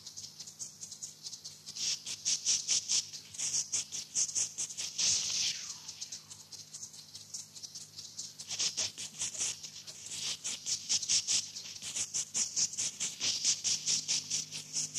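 Rapid, rhythmic scratching of a drawing tool stroking across paper, several strokes a second, coming in waves, with one short falling squeak about five seconds in.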